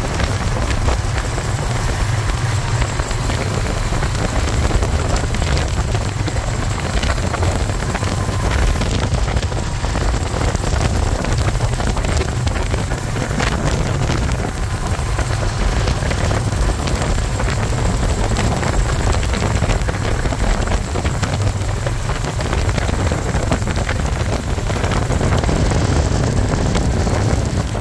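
Wind rushing over the microphone with a steady low rumble of road and engine noise, recorded from a vehicle moving at highway speed.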